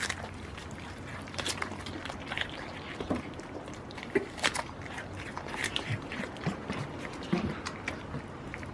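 Several goats nibbling and crunching food from a hand. The chewing makes many short, irregular clicks and crackles.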